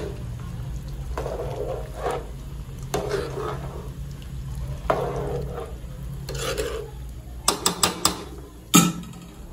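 A spoon stirring soaked basmati rice and whole masoor lentils in a pot of boiling water, in slow sweeping strokes about once a second. Near the end come a few sharp clicks and one loud knock.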